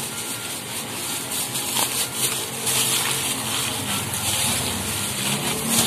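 Wet squishing and plastic rustling as a gloved hand mixes raw pork cubes in a soy sauce and calamansi marinade in a stainless steel bowl.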